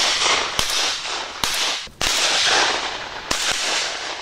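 Shotgun shots fired at flying wood pigeons: four sharp reports in quick succession, each trailing off in a long echo.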